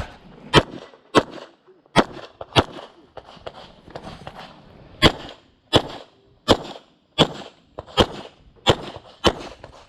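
Handgun firing a course of fire: two quick pairs of shots in the first three seconds, a pause of about two seconds, then a steady string of shots roughly every 0.7 s, about eleven in all, each with a short echo.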